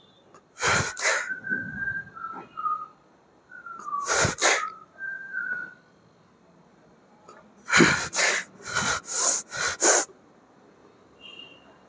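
Forceful, hissing exhales of a man straining through heavy flat dumbbell bench-press reps, with thin whistling tones in the breath between the first few. Near the end comes a quick run of five sharp exhales.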